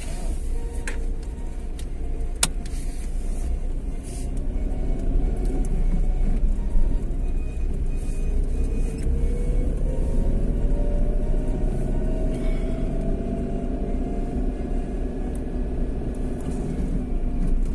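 Car driving, heard from inside the cabin: a steady low engine and road rumble. About halfway through, the engine note rises slowly for several seconds as the car picks up speed.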